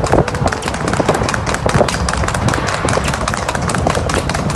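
Hooves of two trotting harness horses clip-clopping rapidly on tarmac as they pull sulkies at racing speed, over a steady low rumble from the following vehicle.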